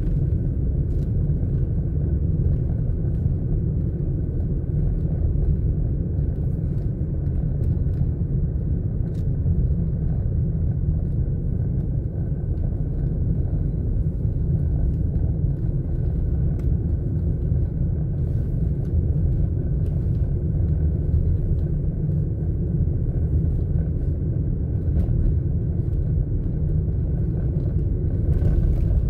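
Steady low rumble of a car's engine and tyres heard from inside the cabin at slow driving speed, with a brief louder scuff near the end.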